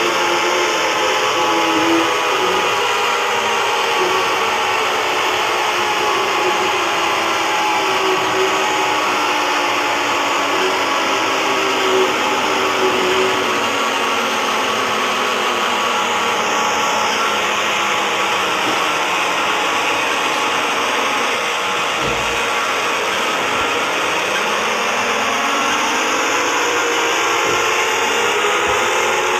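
Fan-made emergency-alert-style alarm sound: a loud, dense wall of distorted, layered electronic tones over heavy hiss. Many of the tones glide slowly downward in pitch, and in the last few seconds several sweep back upward.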